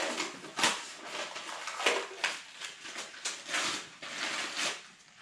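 Irregular knocks and rustles of objects being handled, a handful of sharper ones scattered through, the loudest about two-thirds of a second in.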